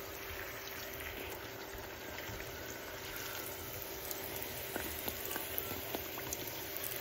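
Hot oil sizzling steadily around a sweet pastry deep-frying in a pan, with scattered small pops and crackles, a few sharper ones about five to six seconds in as the pastry is lifted and turned with tongs.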